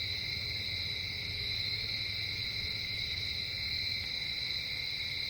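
Night insect chorus: a steady, continuous high-pitched trilling of crickets.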